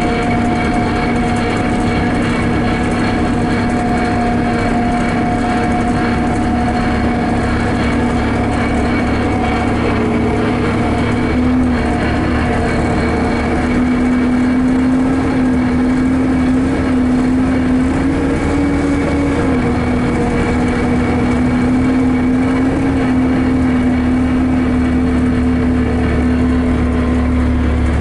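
Steady cabin noise of a vehicle driving on a highway: a constant engine hum over low tyre and road rumble, the hum rising slightly in pitch and settling back about two-thirds of the way through.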